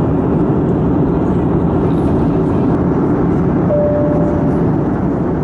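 Steady airliner cabin noise in cruise: a low, even rush of jet engines and airflow. A short, steady single tone sounds about two-thirds of the way through.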